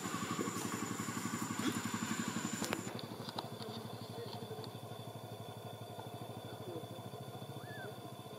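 A small engine, motorcycle-like, running with a steady rapid pulse, slowly fading toward the end, with a thin steady high whine above it.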